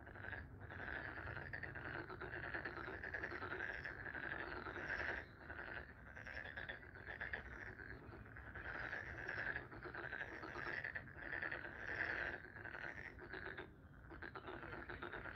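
A chorus of many frogs calling continuously, their overlapping croaks running without a break except for two brief lulls, about five seconds in and near the end.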